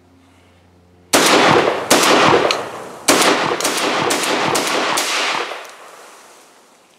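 Benelli M4 12-gauge semi-automatic shotgun fired in a rapid string of shots, beginning about a second in and ending about four seconds later, each blast with an echoing tail.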